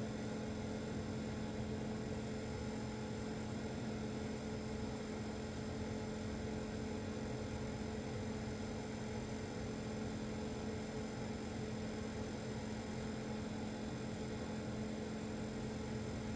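Car engine idling steadily with a constant, unchanging hum, recorded as the sound of a vacuum leak.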